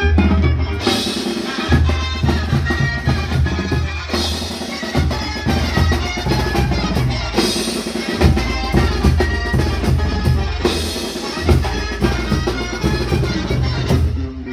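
Tecnobanda music playing: a drum kit with a strong bass line under sustained keyboard or horn notes.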